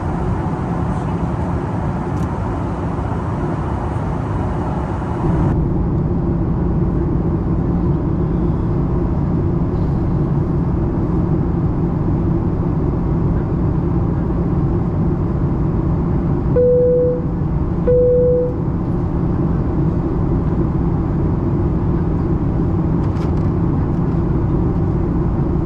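Steady engine and airflow drone inside a Boeing 737-800 cabin in flight. A hiss cuts off about five seconds in, and two short cabin chimes sound about a second and a half apart past the middle.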